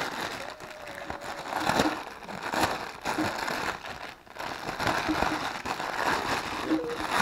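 Grey plastic mailer bag crinkling and rustling in irregular bursts as it is handled and opened by hand.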